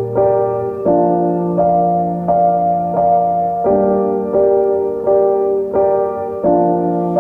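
Background music: sustained keyboard chords, struck anew about every 0.7 seconds in an even rhythm.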